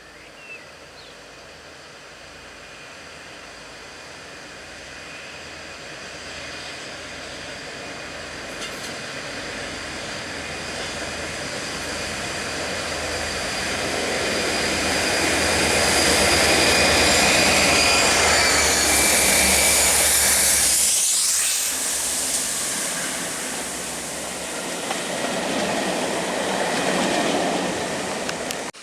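A pair of Class 57 diesel locomotives approaching and passing slowly. Their engine drone and high whining tones build to a peak about two-thirds of the way through. The pitch drops as they go by, and the sound eases off.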